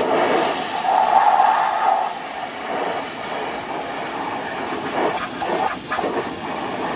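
Pressure washer spraying a jet of water onto the bare sheet metal of a car's engine bay, a steady hiss of spray that is loudest in the first two seconds.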